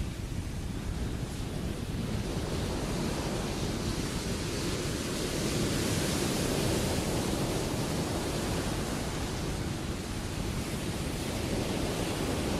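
Ocean surf: breaking waves and washing whitewater make a steady rushing noise that swells a little louder near the middle.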